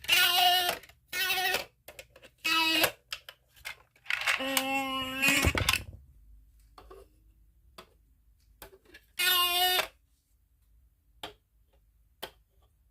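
A shape-sorter toy's short voice-like sound effects, five of them, the longest about a second and a half, with small plastic clicks between.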